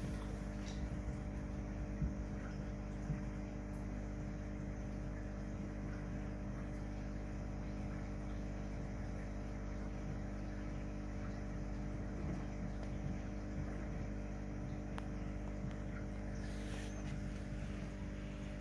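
Steady electrical hum of running aquarium equipment, with a faint hiss and a couple of small clicks about two and three seconds in.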